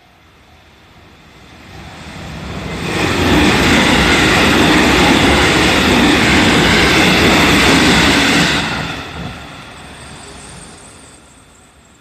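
JR Central 313 series electric train passing over a level crossing: its rail noise builds over about two seconds, stays loud and steady for about five seconds, then dies away. A level crossing bell rings faintly in a regular beat at the start.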